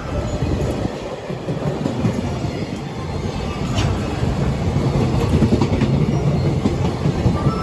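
Container flatcars of a freight train rolling past close by: a steady rumble of wheels on the rails with clickety-clack over the rail joints. It grows a little louder in the second half.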